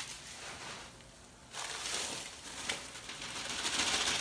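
Shredded newspaper rustling and crinkling as it is handled and pulled out of a plastic tub of live superworms, with a short quieter pause about a second in.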